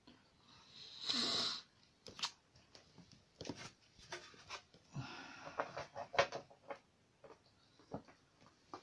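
Handling noise: a rustle about a second in, then scattered clicks and knocks and more rustling as a paint palette and brushes are handled and set down, with a clothing sleeve brushing close past the camera.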